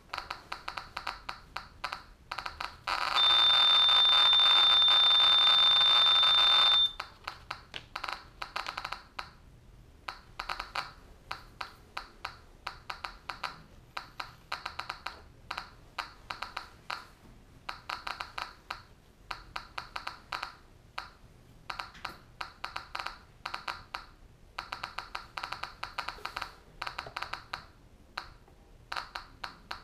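SV500 Geiger counter with an SBT-10 Geiger-Müller probe clicking irregularly, a few counts a second, while it measures a plutonium-239 source behind a sheet of paper that blocks its alpha radiation. From about three to seven seconds in, the counts run together into a loud dense rush and a steady high beep sounds over them; then the scattered clicking returns.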